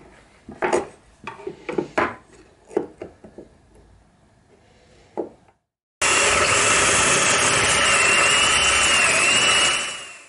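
Cordless drill boring a hole into plywood: a loud, steady motor whine with the grinding of the bit in the wood, starting suddenly about six seconds in and dying away near the end. Before it, light taps and scratches as the wood is marked out with a pencil and square.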